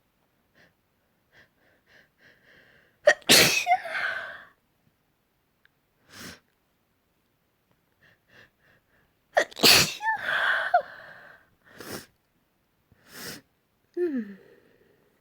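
Two loud human sneezes about six seconds apart, each preceded by a run of short, quick catching breaths. Sniffs come between and after them, and a brief falling-pitch exhale near the end. The sneezing fit is set off by wood dust.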